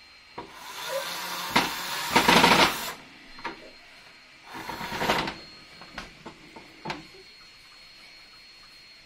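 Cordless drill driving a screw into a wooden board: one long grinding burst of about two and a half seconds, then a shorter one of under a second. A few light clicks follow.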